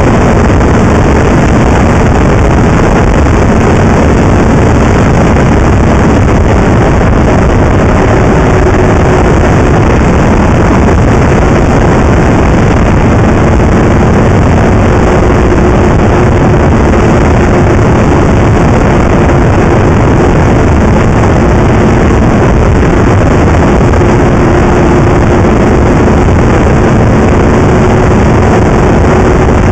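Snowmobile engine running steadily at cruising speed, under loud, steady wind rush on the microphone.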